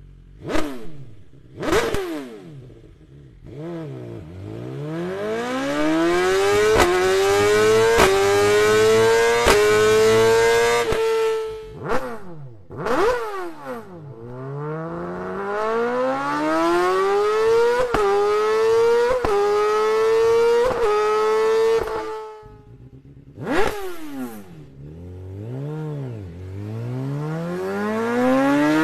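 Four-cylinder superbike on an Akrapovič exhaust: two quick throttle blips, then hard acceleration up through the gears, the engine pitch climbing high with a brief cut and dip at each upshift. The bike then makes a second run up through the gears, goes through a string of downshifts with throttle blips, and accelerates again near the end.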